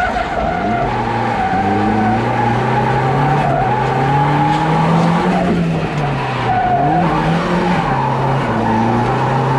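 Turbocharged Mazda MX-5 engine in second gear, its revs rising and falling again and again, while the tyres squeal steadily through a drift.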